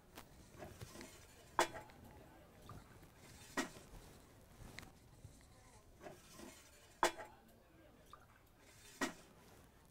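Dishes and utensils being handled: four sharp clinks about two seconds apart, with lighter knocks and rattles between them.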